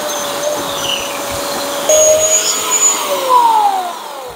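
Bosch electric chainsaw running at full speed as it cuts a groove into a deadwood log, with a steady motor whine. It gets louder about two seconds in, then the trigger is released and the motor winds down with falling pitch near the end.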